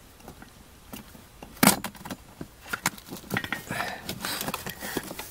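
Hands working the plastic wiring connector and harness on a car's blower motor resistor: one sharp plastic click about a second and a half in, then a run of small clicks and rattles.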